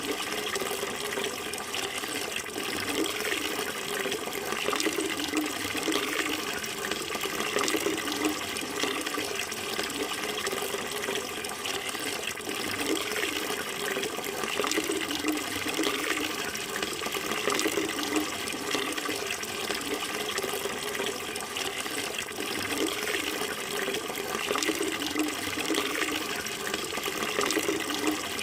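Flowing water running steadily, an even rushing splash with no breaks or changes.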